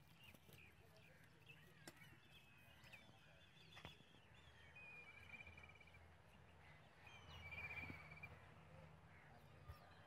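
Faint rural outdoor ambience with distant birds chirping, including a short trill about halfway through and a louder one near the end.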